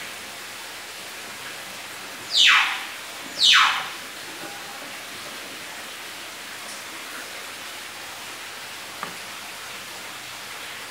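Pancake batter sizzling steadily in a nonstick frying pan over a low gas flame, the cook waiting for its bubbling sound as the sign it is ready to flip. About two seconds in, two loud, short falling whooshes about a second apart cut over it.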